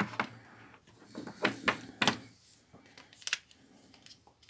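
Several sharp plastic clicks and taps, scattered and irregular, from the housing of a Nokia 6111 slider phone being handled and pried at with the fingers while its casing is open.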